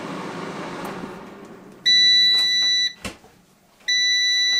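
Power AirFryer finishing its cooking cycle: its fan whir fades away, then it gives two long, steady electronic beeps about a second apart, the signal that the timer has run out and the food is done.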